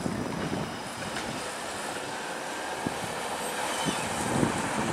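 Bombardier Flexity Outlook streetcar rolling slowly through a street loop, a steady rumble with a few light clicks, and a car passing close by near the end.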